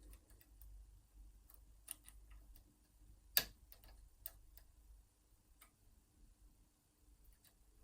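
Faint, irregular metallic clicks and ticks of a pick working the levers inside a Squire Defiant lever padlock, held under tension by a bent-nail tension tool. One sharper click comes about three and a half seconds in.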